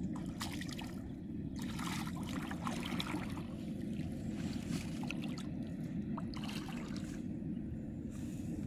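Water trickling and splashing in a shallow canal, in irregular bursts, over a steady low rumble.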